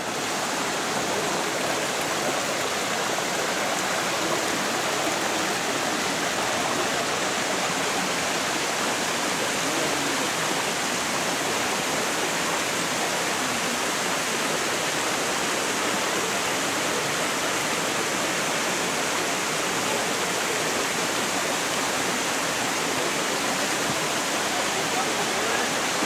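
Steady rush and splash of a small mountain stream tumbling over rocks.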